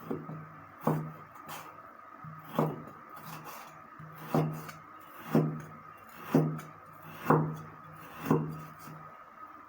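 Raw meat being minced by hand: a knife striking a wooden chopping board about once a second, with lighter knocks in between.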